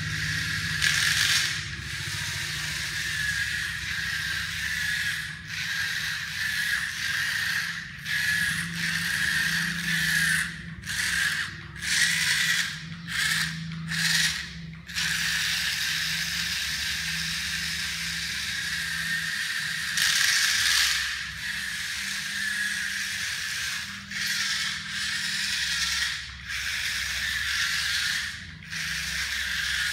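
Small DC gear motors of a homemade RC car running with a steady gearbox whine. They cut out and restart many times, in quick succession about ten to fifteen seconds in and again near the end.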